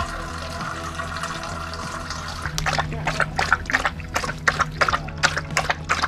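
Water running from a drinking-fountain spout into a steel dog bowl. From about two and a half seconds in, a dog laps water from the bowl in quick, wet strokes, about four a second.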